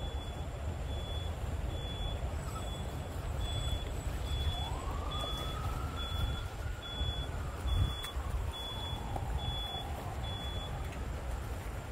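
A steady low rumble with a run of short, high electronic beeps, about two a second, that stop near the end, and a faint whine that rises in pitch about halfway through and then slowly falls.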